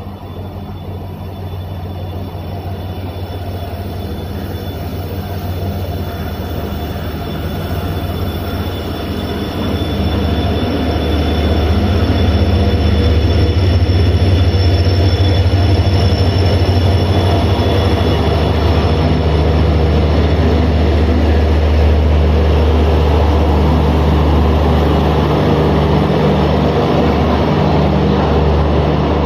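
WDP4D diesel locomotive's 16-cylinder two-stroke EMD engine running with a low, steady hum that grows louder over about the first twelve seconds as it pulls in alongside, then holds loud as the coaches roll past. A thin high squeal from the wheels sounds over it in the first half.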